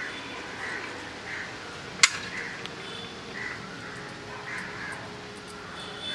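Crows cawing over and over, about once a second, with one sharp click about two seconds in, the loudest sound.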